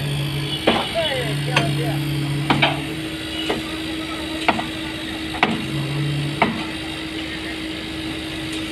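Hammer blows on steel formwork, sharp knocks about once a second, over a steady engine hum.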